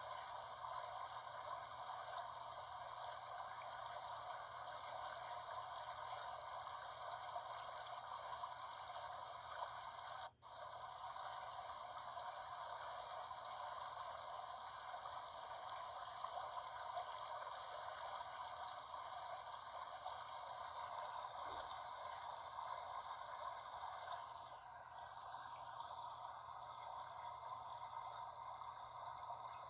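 Mountain brook flowing steadily over rocks, a continuous rushing, trickling water sound. It cuts out for an instant about ten seconds in, and its tone shifts slightly later on.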